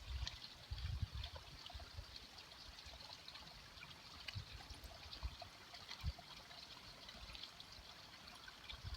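Running water trickling steadily, with low wind rumble on the microphone in the first second or so.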